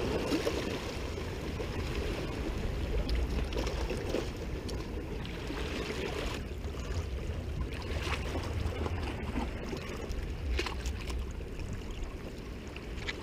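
Steady wind noise on the microphone over small sea waves lapping against rocks, with a few faint sharp splashes or clicks now and then.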